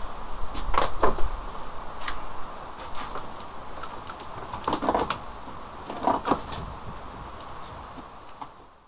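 A cardboard shipping box being handled and opened by hand: scattered sharp taps, crackles and rustles of cardboard and packing, a few at a time.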